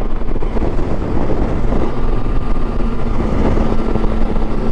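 Yamaha Tracer 900's three-cylinder engine running at a steady road speed under the rider, with wind and road noise, and a steady hum settling in about two seconds in.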